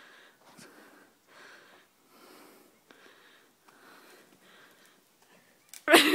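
Soft breathing close to the microphone, a faint breath about every three-quarters of a second, then a sudden loud burst of voice near the end.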